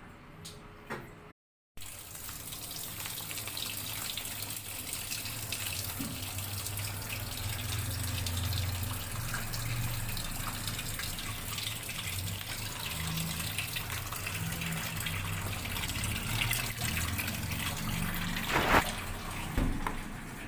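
Water running steadily into a washing machine, with a low hum underneath. A sharp knock comes near the end.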